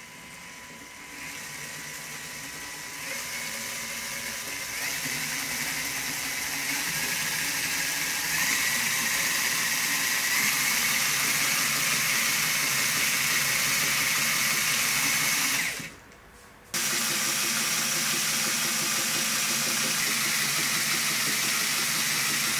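Small LEGO Power Functions motor whirring as it spins the drive and the hanging LEGO E-motor generator, which lights the model's LEDs. The whine rises in several steps over the first eight seconds as the speed goes up, then holds steady; it drops out for under a second about sixteen seconds in and comes back at full speed.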